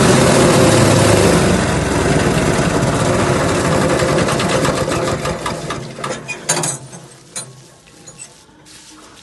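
S20 multifunction forage chopper running down: the loud running noise fades from about a second and a half in into a fast rhythmic ticking that thins out, with a few sharp clicks, until the machine is nearly still about eight seconds in.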